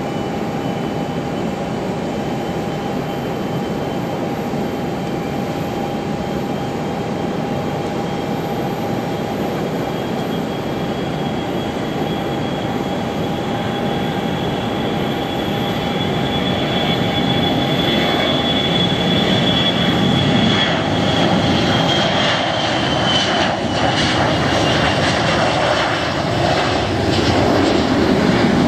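Boeing 737-300's CFM56-3 turbofan engines at takeoff power: a steady whine over a rushing roar that grows louder through the second half as the jet races down the runway and lifts off. The high whine drops in pitch as it passes.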